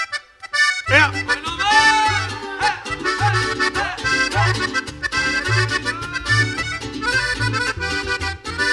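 Live band music led by an accordion playing a quick melody over a pulsing bass line. A few short stabs come first, then the full band comes in about a second in.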